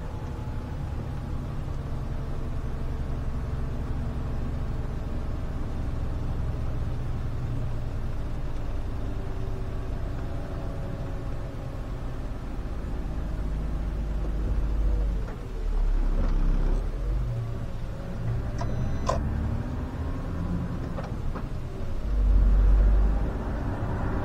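SOR CN10.5 bus driving on the road, its diesel engine and driveline running steadily, with the engine note gliding and shifting partway through. A louder low rumble swells near the end.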